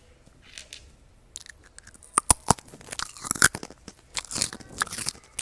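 Crunchy dry food being bitten and chewed close to the microphone. The crackling crunches are irregular and start about a second and a half in.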